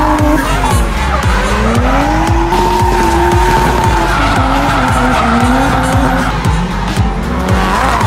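Nissan Silvia S15 drift car's engine revving up and down through a slide, with tyre squeal, under background music with a steady beat.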